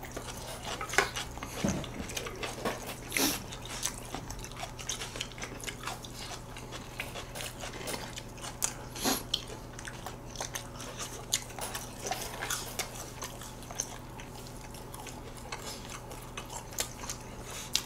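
Close-miked chewing and biting of noodles and fried food: irregular wet mouth clicks, smacks and small crunches.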